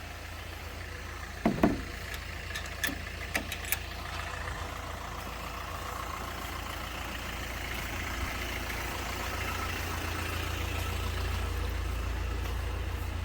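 Delivery van engine idling with a steady low rumble, gradually getting a little louder toward the end. A single thump comes about a second and a half in, followed by a few sharp clicks.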